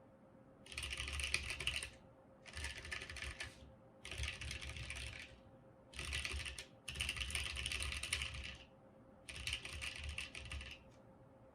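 Mercutio 40% mechanical keyboard with lubed NovelKeys Box Cream switches, typed in fast rolling runs across the home-row keys (asdf;lkj). There are six bursts of rapid keystrokes, each a second or so long, with short pauses between them.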